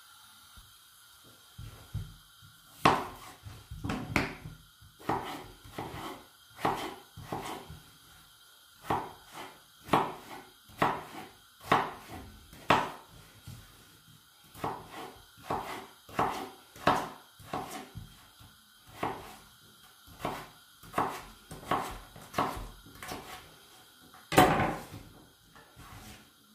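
Kitchen knife chopping a raw potato into small cubes on a wooden cutting board: a steady run of knocks, roughly one a second, with a louder knock near the end.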